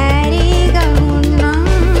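Song with a steady beat and bass, over which a voice slides up into one long wavering note that ends near the close.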